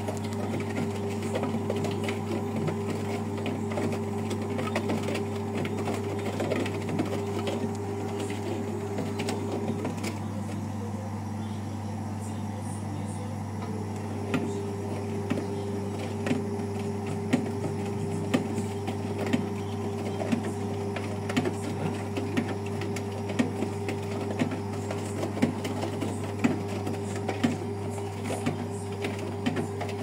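Brandt 522 top-loading washing machine running, with a steady motor hum and its drum turning. The hum's higher tone drops out for a few seconds about a third of the way in, and from about halfway there are regular clicks roughly once a second.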